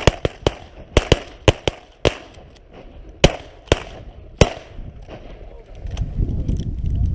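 A quick, uneven run of about eleven sharp cracks in the first four and a half seconds, several coming in pairs a fraction of a second apart, then a low rumble building near the end.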